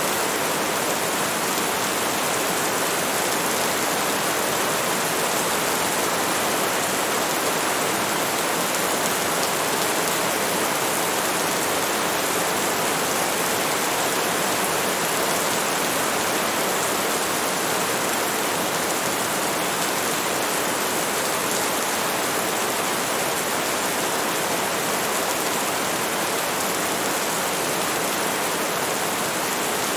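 Heavy rain falling in a steady, dense hiss, with no distinct drops or thunder standing out.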